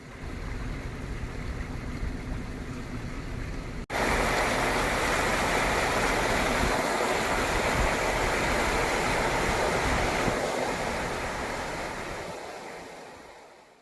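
A steady rushing hiss of rainwater. It jumps louder after a cut about four seconds in, then fades out near the end.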